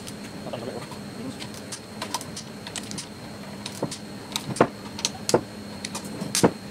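Hand ratchet clicking and metal tools clinking while the camshaft bearing-cap bolts are undone on a Toyota 7M-GE cylinder head. Irregular short clicks, with a few sharper clacks in the second half.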